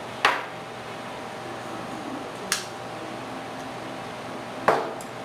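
Three sharp metallic clinks, about two seconds apart, as small catalyst slave pump parts are handled and set down on a workbench, over a steady background hum.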